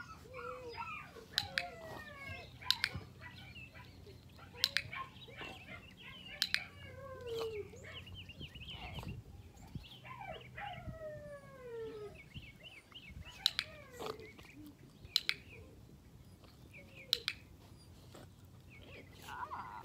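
Puppy whining and whimpering in many short, falling cries. Several sharp clicks come through among them.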